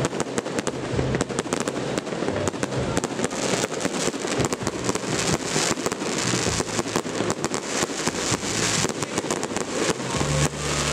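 Fireworks display going off: a dense, unbroken run of crackling pops and bangs.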